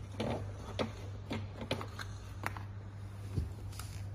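Light, scattered clicks and brief rustles of hands handling a power cord as it is fed through a table's wooden frame.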